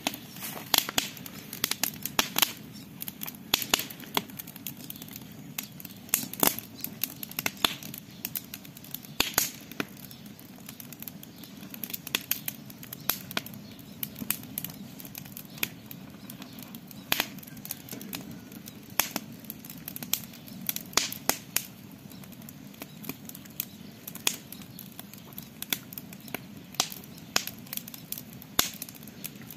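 Campfire crackling: irregular sharp pops and snaps, several a second, over a low steady rush.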